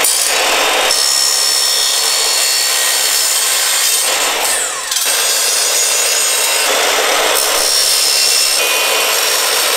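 Sliding compound mitre saw cutting aluminium stock: a loud, high-pitched screech of the spinning blade through the metal. It dips briefly just before five seconds in, then cuts again.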